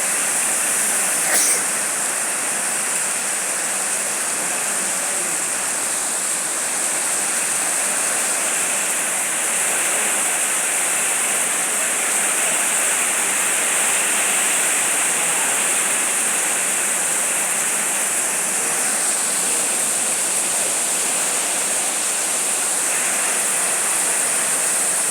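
Heavy rain pouring down, a steady, even hiss, with one brief click about a second and a half in.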